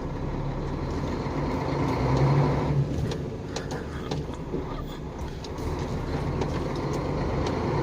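KAMAZ truck's diesel engine running steadily as the truck drives, a low drone that swells slightly about two seconds in, with a few light rattles.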